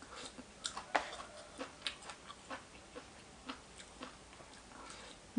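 A person chewing a mouthful of papaya salad close to the microphone: soft, irregular wet clicks and smacks, a few a second.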